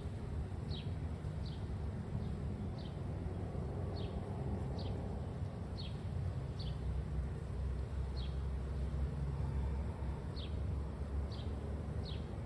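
Honeybees humming around an open hive frame in a steady low drone. A short, high, falling chirp repeats about once a second behind it.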